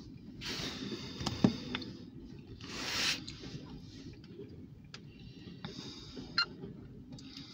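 Muffled low rumble of a slow freight train of covered grain hopper cars rolling past, heard from inside a car. It carries a few sharp clicks, the loudest about one and a half seconds in, and two brief hissing swells.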